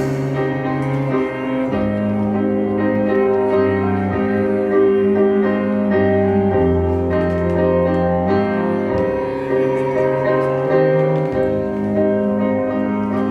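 Piano playing a slow song introduction: sustained chords over a bass line that moves every second or two, with no voice yet.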